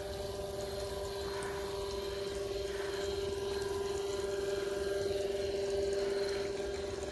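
Steady mechanical hum from a running machine, one even, unchanging tone with fainter higher tones above it.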